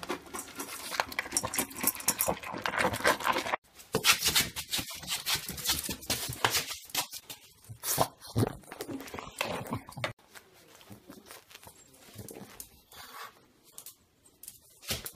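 Dog sounds in several short clips, broken by sudden cuts about three and a half seconds in and about ten seconds in; quieter in the last few seconds.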